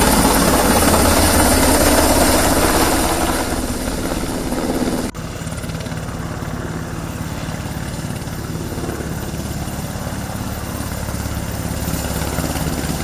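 Military helicopter's rotor and engine running, loud for the first few seconds and then easing off. About five seconds in there is an abrupt cut to a quieter, steady rotor beat.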